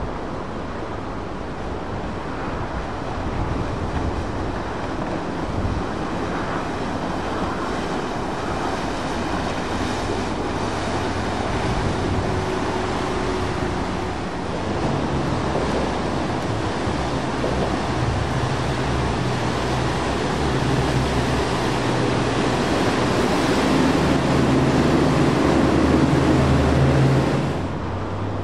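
Motorboat engines running under way, with water rushing and splashing from their wakes in choppy current. The sound swells in the last few seconds, then drops suddenly near the end.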